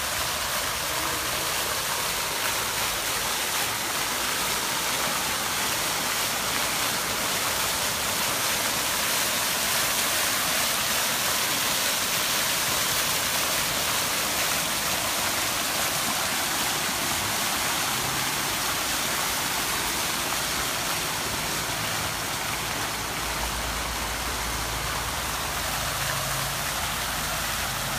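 Water from a tiered stone fountain and its small jets splashing into the basin: a steady rushing hiss. A low rumble joins near the end.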